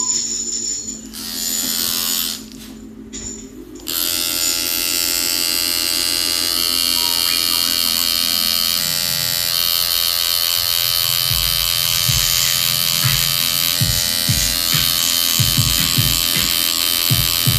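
Tattoo machine buzzing steadily while tattooing the face, starting up about four seconds in.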